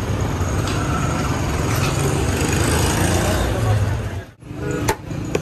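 Steady low rumble of street traffic and engines with general street noise. It cuts off abruptly about four seconds in, and two sharp clicks follow.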